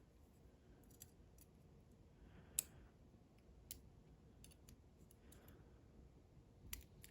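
Faint, scattered clicks of small metal tools against the parts of a Clavis pin-tumbler lock being taken apart, with one sharper click about two and a half seconds in and a couple more near the end.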